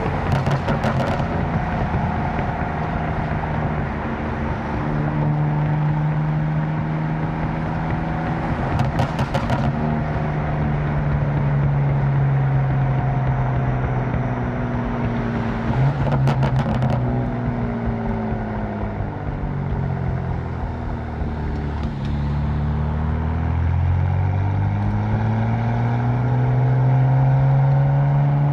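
Tuned BMW M4's twin-turbo inline-six engine driving, its pitch climbing and dropping through several accelerations and gear changes. Short bursts of rapid exhaust crackling come near the start, about nine seconds in and about sixteen seconds in.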